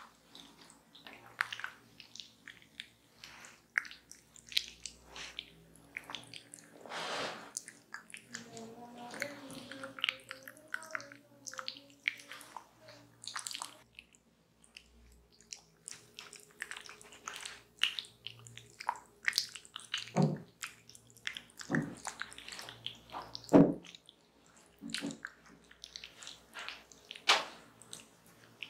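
Wet, squishy smacks and squelches of mashed tropical fruit pulp being rubbed and pressed over bare skin by hand during a massage, coming as an irregular string of short sounds.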